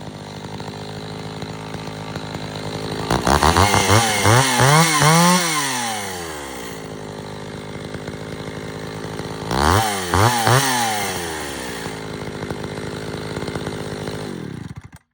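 Echo CS-550 EVL two-stroke chainsaw idling, then revved in a run of quick throttle blips about three seconds in and in a few more blips near ten seconds, dropping back to idle each time. The engine cuts off suddenly at the very end.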